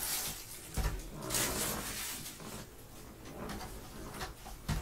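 Plastic shrink wrap crinkling as it is pulled off a cardboard trading-card box, with the box handled by gloved hands and a soft thump about a second in.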